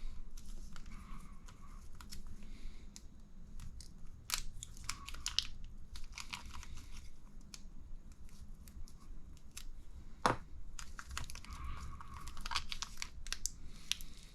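Plastic kit packaging crinkling and rustling as it is handled, with irregular small clicks of plastic parts and one sharper click about ten seconds in.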